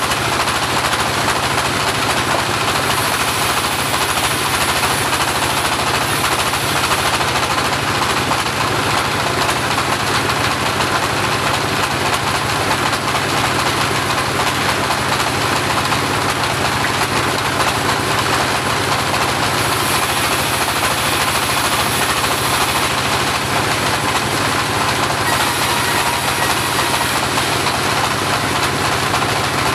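Home-built portable bandsaw running steadily under power, a dense, even mechanical noise with a fast low pulsing from its drive motor.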